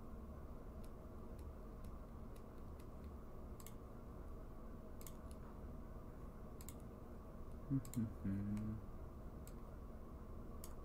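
Scattered single clicks of a computer mouse or keyboard, about a dozen spread irregularly, over a steady low hum. A short low hum, louder than the clicks, comes about eight seconds in.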